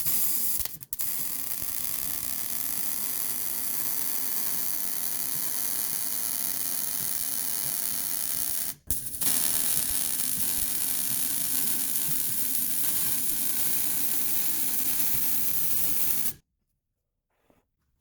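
Wire-feed welder crackling and hissing steadily as it lays weld beads on a steel exhaust pipe where it joins a new resonator. It welds in two long runs, with a brief stop about nine seconds in, and stops about sixteen seconds in.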